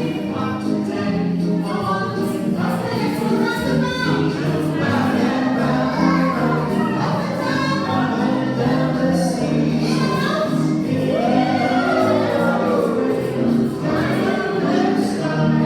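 A group of voices singing a song together over music.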